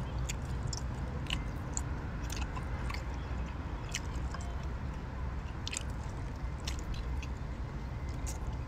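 Close-up chewing and biting of cooked octopus tentacles, with scattered short, wet mouth smacks over a steady low rumble.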